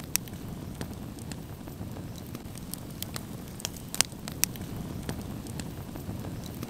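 Wood campfire crackling, with sharp pops scattered through it over a steady low rumble; the loudest pops come right at the start and about four seconds in.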